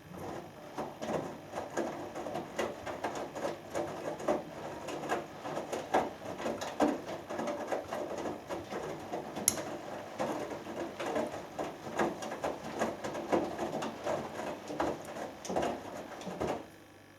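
Hoover Dynamic Next front-loading washing machine drum tumbling during the main wash: wet laundry lifting and dropping and water sloshing in a steady run of soft, irregular splashes, with one sharp click about halfway through. The drum stops turning near the end.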